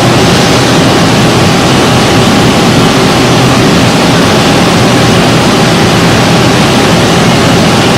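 Tongtai VTX-5 CNC milling and tapping center running: a loud, steady mechanical rush and hiss with a faint steady whine underneath.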